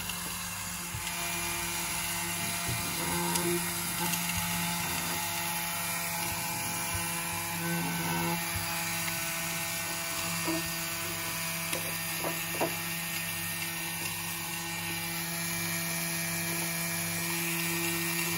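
A small electric motor running steadily with a constant hum, with a few light knocks about two thirds of the way through.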